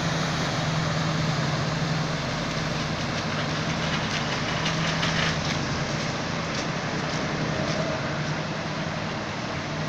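Pickup truck wading through deep floodwater: a steady engine hum under the rush and splash of water pushed aside by the wheels, the splashing loudest about halfway through.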